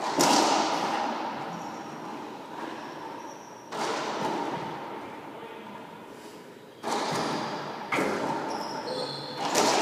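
Racquetball rally: sharp cracks of the ball being struck by racquets and smacking the walls, about five in all spaced a second to three seconds apart, each ringing on in a long echo in the enclosed court.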